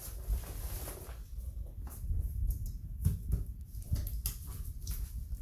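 Handling noise from a handheld phone: a low rumble with scattered small clicks, taps and rubbing close to the microphone as the phone is moved around.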